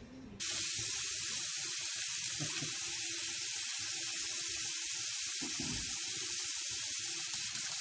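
Bathroom faucet running a thin, steady stream of water into a sink, starting about half a second in.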